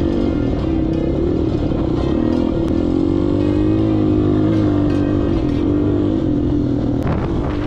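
Off-road motorcycle engine running hard on a dirt track, its pitch rising and falling with the throttle.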